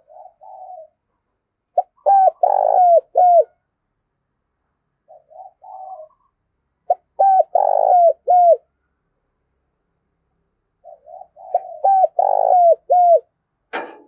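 Spotted dove cooing its song three times, about five seconds apart: each time a few soft low notes, then a loud run of coos. A sharp click near the end.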